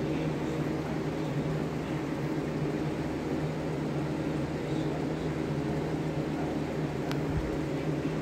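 Electric fan running steadily: a constant whir with a low hum under it.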